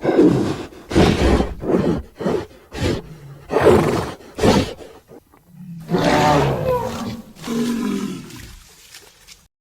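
Kaiju creature sound effects: a quick series of short, rough roars and growls, then after a brief pause a longer pitched roar about six seconds in, followed by a weaker one that trails away.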